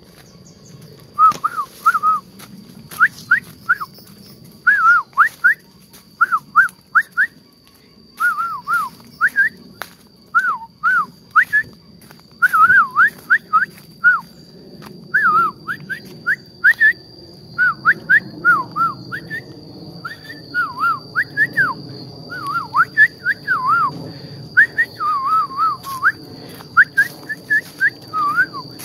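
Loud whistled calls: short notes sweeping up and down, given in quick groups of two to four and repeated over and over. A steady thin high tone of insects runs underneath.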